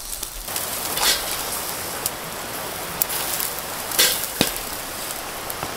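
Beef slices and scallops sizzling on a wire grate over hot charcoal: a steady hiss, with a few sharp clicks and pops about a second apart.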